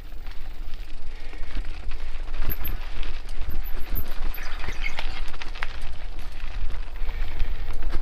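Mountain bike rolling fast along a dirt singletrack: a steady low rumble of wind on the microphone and tyres on the trail, with a run of rattles and knocks from the bike over rough ground in the middle.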